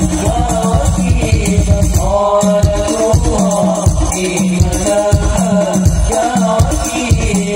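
Sholawat devotional singing, a lead voice with the group, over a steady beat of hadrah frame drums, amplified through the stage loudspeakers.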